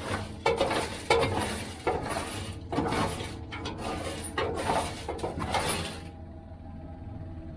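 Irregular metallic clattering and scraping, a stroke every half-second to a second, as maize seed left in a flat-bottomed drill hopper, which will not run out on its own, is cleared. About six seconds in it stops and gives way to a steady tractor engine hum.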